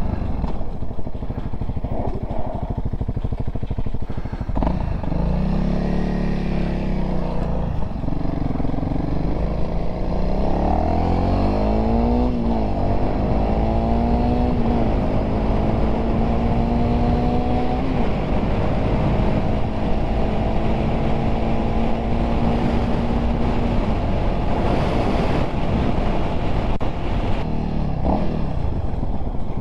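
Honda CRF300L single-cylinder dual-sport motorcycle accelerating through several gears, the engine pitch climbing and dropping back at each shift, then holding a steady cruise. Wind rushes over the microphone throughout.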